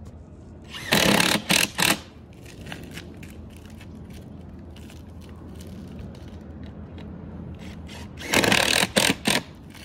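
Power drill driving self-tapping screws through the skylight frame into the wooden curb, twice: each run lasts about a second and ends in a couple of short trigger pulses as the screw seats, the second run coming about seven seconds after the first.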